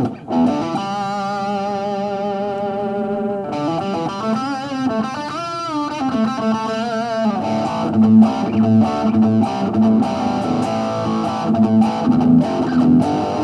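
Electric guitar played through a Roland Cube 20X practice amp on a light rock tone with some gain. A held chord wavers, then bent notes glide up and down about four seconds in, then a busier riff starts about seven seconds in.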